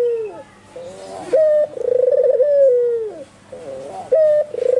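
White albino puter (Barbary dove) cooing hard and repeatedly. Each phrase is a short clipped note followed by a long rolling coo that drops in pitch at the end. One full phrase is heard, and the next begins near the end.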